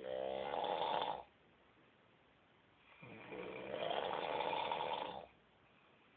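A man snoring in his sleep: a rattling snore that ends about a second in, then a longer snore from about three to five seconds in.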